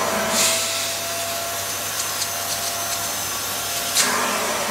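Wertheim 7 Series canister vacuum cleaner running steadily with a constant whine while its nozzle is drawn over a fabric sofa. There are two brief, louder hissing surges of air, about half a second in and near the end.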